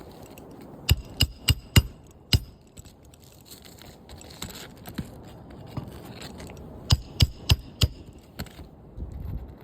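Hammer blows driving nails during a roof shingle repair: five quick, sharp strikes about a second in and four more near the end, roughly three a second.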